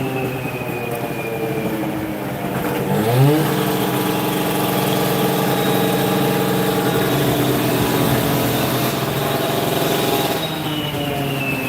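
A machine engine revs up sharply about three seconds in, holds at high speed for several seconds, then starts to ease off near the end.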